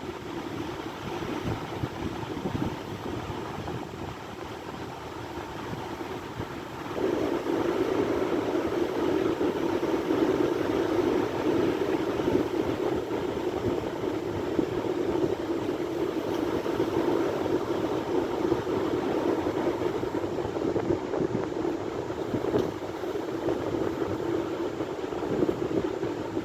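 Sea surf rushing as a steady wash of noise, louder from about seven seconds in.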